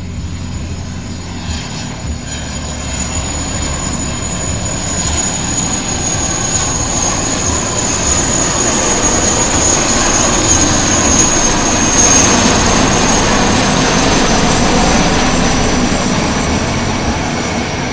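A formation of military helicopters flying over, a high turbine whine over the rotor noise. It grows louder as they approach and is loudest about two-thirds of the way in, then the whine drops slightly in pitch as they pass.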